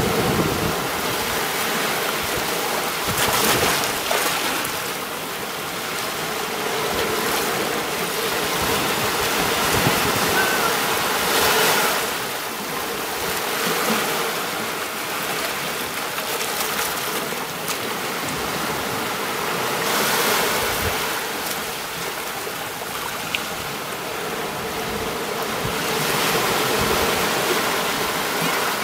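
Sea waves washing onto a beach, the wash swelling and easing every few seconds.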